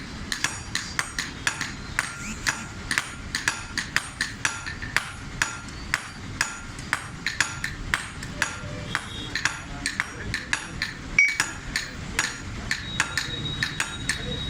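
Hammer blows on iron, a blacksmith forging a sickle blade: a steady run of sharp metallic strikes, about two to three a second, each with a short ring. One stronger blow lands about 11 seconds in.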